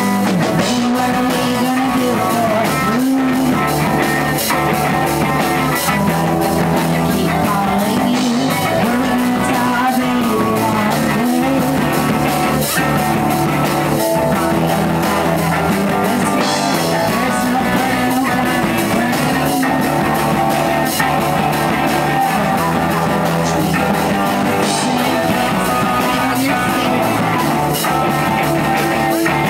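Live rock band playing: electric guitars, bass guitar and drum kit, with a woman singing. Loud and steady.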